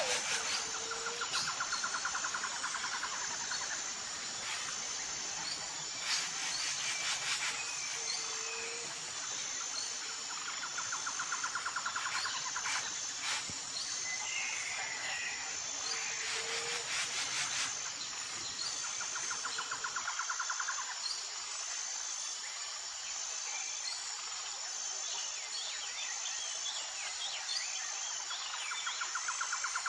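Outdoor nature ambience: insects keep up a steady high-pitched drone, with a lower trill of about two seconds repeating every few seconds. Birds chirp now and then.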